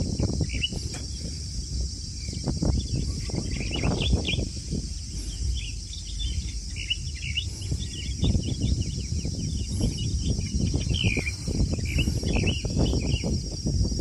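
Outdoor ambience: small birds chirping repeatedly over a steady high insect drone, with an uneven low rumble underneath.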